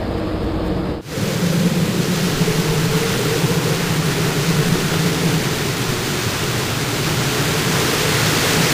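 Steady rushing-air sound effect of a bomb falling. It starts abruptly about a second in, after a low aircraft drone, and holds evenly without a whistle or pitch change.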